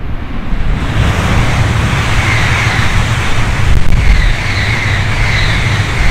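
Coupled E6-series Komachi and E5-series Hayabusa shinkansen running through the station without stopping: a loud, steady rushing rumble of wheels on rail and air, with a wavering high whine joining about two seconds in.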